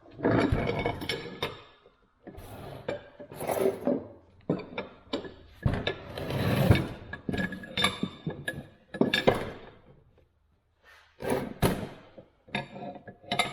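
Irregular metal clinks, knocks and scraping as parts of a Record No. 6 cast-iron bench vise are handled and pulled apart, with short pauses between bursts of noise.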